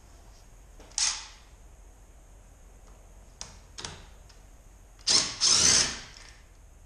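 Cordless drill, fitted with a socket extension on a car's locking wheel nut, running in two short bursts: a brief blip about a second in, then a run of just under a second near the end with a whine that bends in pitch. A few light clicks in between.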